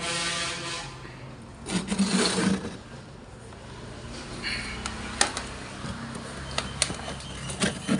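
Wooden home-theatre subwoofer cabinet being handled and turned round on a surface: a scrape at the start, another about two seconds in, rubbing, then a few sharp knocks in the second half.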